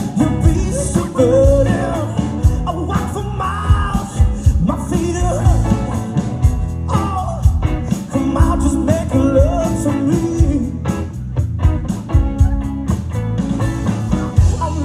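Rock band playing live, with a lead vocal singing over guitar, bass and a steady drum beat.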